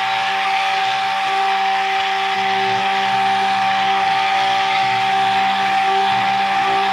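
Electric stick blender running steadily while submerged in soap batter, mixing oils and lye water together. It gives a constant motor whine over a hissing churn, with no change in speed.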